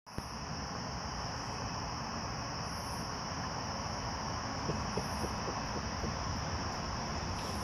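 Night crickets chirring in a steady, high-pitched chorus, with a fainter high call repeating about every two seconds above it, over a low background hiss.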